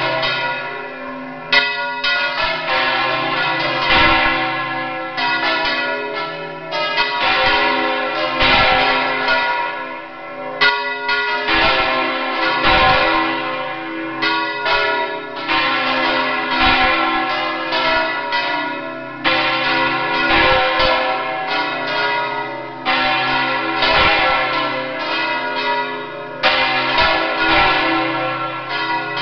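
Four church bells swinging full circle (Valencian volteig), their clappers striking again and again in a dense, irregular peal of overlapping strokes with long ringing tones, loud and close from inside the belfry.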